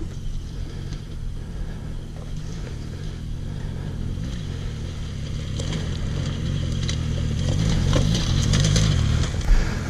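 Off-road motorcycle engine running as the bike climbs a rocky trail, getting louder as it comes closer, with a few scraping clicks near the end.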